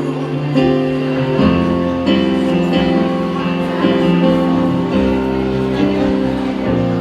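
Live rock band playing the instrumental bars between vocal lines of a ballad, with guitar chords ringing and changing every second or two.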